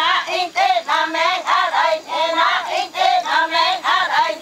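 A group of Waorani women chanting together in unison, high voices repeating short rising-and-falling syllables at a steady pulse of about three a second.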